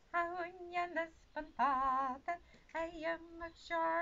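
A woman singing unaccompanied, in short phrases of held notes with brief pauses between them.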